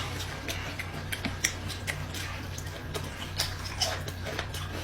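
A person eating noodles close to the microphone: scattered sharp clicks and mouth smacks, over a steady low hum.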